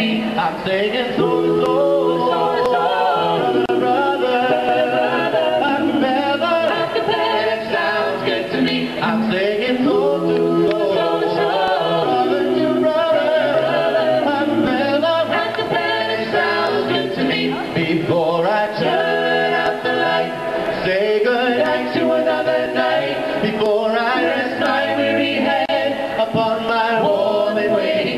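Four-man male a cappella group singing in close harmony, with no instruments, into handheld microphones amplified through PA speakers.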